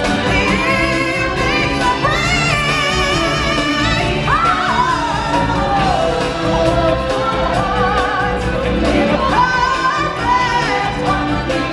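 Stage-show music: singers holding long, wavering notes over a continuous instrumental backing.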